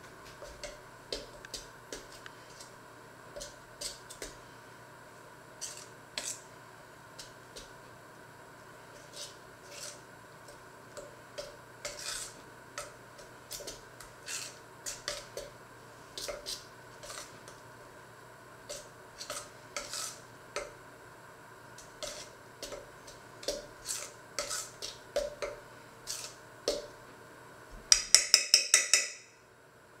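Metal spoon stirring a flour mixture in a stainless steel mixing bowl, clinking and scraping against the sides at an uneven pace. Near the end comes a quick run of louder clinks.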